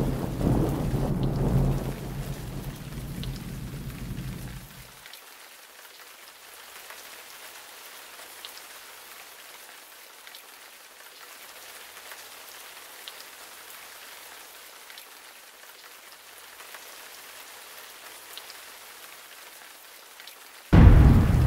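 Rain and thunder: a deep rumble of thunder dies away over the first few seconds, leaving a steady hiss of rain with faint scattered drop ticks, until a sudden deep boom breaks in near the end.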